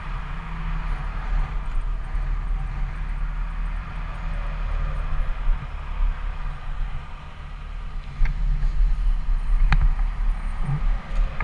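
Yamaha FZ6 inline-four motorcycle running at highway speed, its engine a steady low rumble under rushing wind noise. A couple of sharp knocks come near the end.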